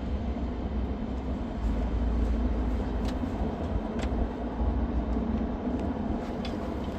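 Steady low rumble of road traffic at a live intersection, with a few faint clicks.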